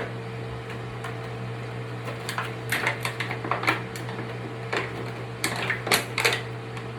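Scattered clicks and crackles of small objects being handled, bunched together in the second half, over a steady low hum.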